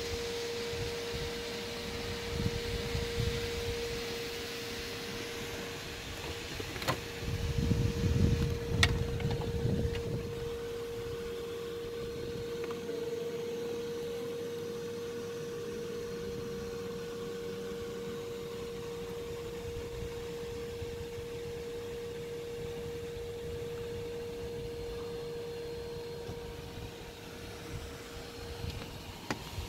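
A small motor running with a steady hum at one pitch, while gusts of wind buffet the microphone with low rumbling, strongest around seven to ten seconds in. Two sharp clicks come about seven and nine seconds in.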